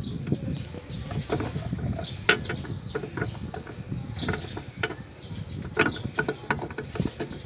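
Scattered small clicks, taps and rattles of a halogen H4 headlight bulb being handled and worked into its socket in the headlight housing.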